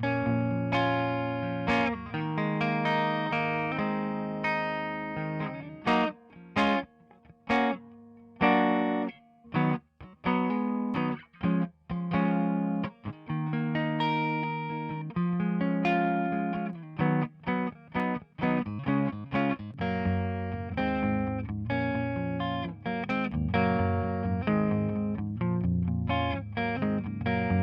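Electric guitar playing through the Waves Kramer Tape emulation plugin, with a light overdriven edge. Held chords give way to a run of short, choppy stabs in the middle, then return to held chords.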